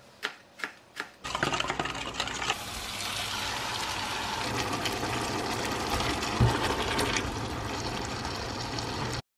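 A knife chopping red capsicum on a cutting board, a few quick strokes, then chicken pieces sizzling steadily in a frying pan as they are tipped in and stir-fried. The sizzle cuts off suddenly near the end.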